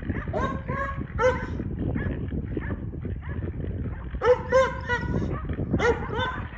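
Blue lacy dogs barking in bursts while holding a sounder of hogs at bay. Short, sharp barks come in clusters at the start, again about four seconds in, and near the end, with a quieter gap between.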